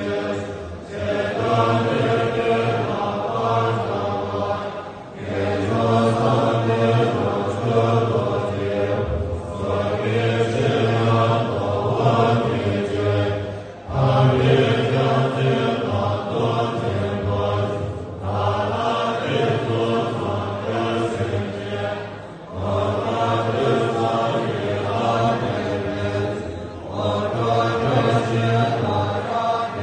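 A large group of Tibetan Buddhist monks chanting prayers together from their texts in low voices, a continuous group chant broken by short pauses every four or five seconds.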